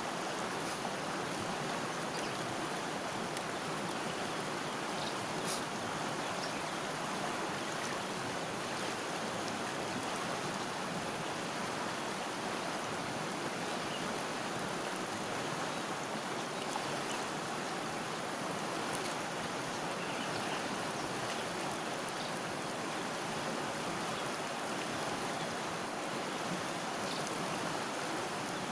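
Shallow river flowing over and around boulders: a steady, even rush of water.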